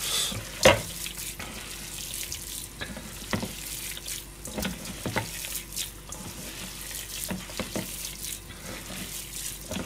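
Hands kneading a wet hamburger mixture of ground meat, egg and breadcrumbs in a stainless steel bowl, with irregular squelching and squishing strokes. A faint steady hum runs underneath.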